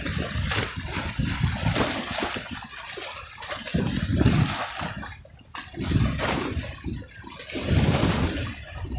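River water sloshing and lapping at the shore in uneven surges that swell and fade every second or two, with a steady hiss.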